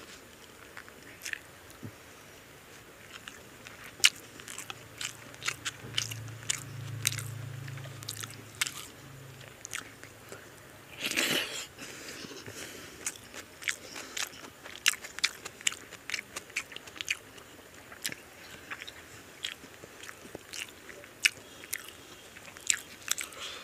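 Close-miked chewing and mouth sounds of a person eating mutton biryani by hand: a steady run of short, wet clicks. A low hum lasts a few seconds near the middle, and a short breathy rush comes about eleven seconds in.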